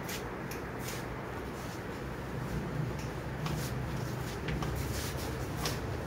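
Scattered light clicks and rustling as the wiring of a split air conditioner's indoor unit is handled, over a steady low hum.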